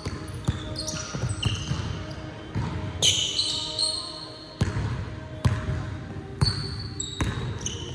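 A basketball being dribbled on a hardwood gym floor, thudding in quick bounces. Sneakers squeak sharply on the hardwood as the players cut and change direction, loudest about three seconds in.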